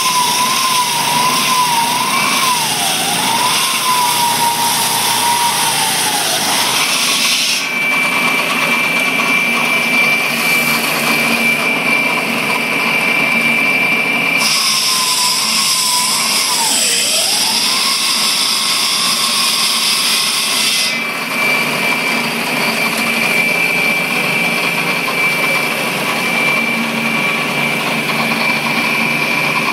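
Concrete saw cutting through an 8-inch-thick concrete slab, running loud and steady under load with a high whine. Its pitch wavers and dips during the first few seconds and again around the middle, and the sound shifts abruptly a few times.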